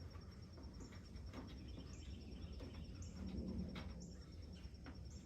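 Steady, rapidly pulsing chirping of crickets, with a few light clicks and knocks spread through it.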